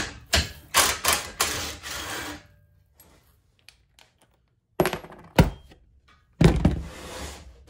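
Cordless drill running in short bursts as a bolt is backed out of the steel frame. After a quiet pause come two sharp knocks and then a louder thump with a short ring-out as metal parts and the drill are set down on the wooden workbench.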